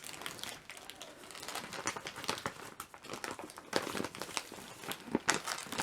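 Plastic toy packaging crinkling and crackling in irregular bursts as it is handled and pulled at to get it open.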